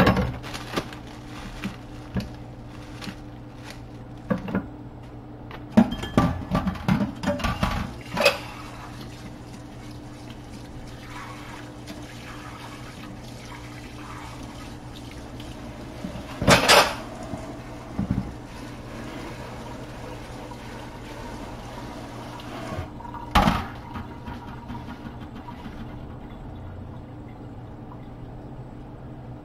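Kitchen clatter of utensils and cookware: a run of knocks and clinks about six seconds in, then two louder clunks later on, over a steady low hum.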